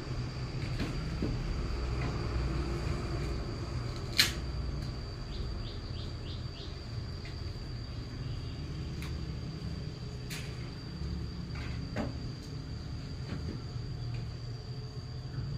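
A steady high drone of insects with scattered clicks and knocks of handling, one sharp click about four seconds in.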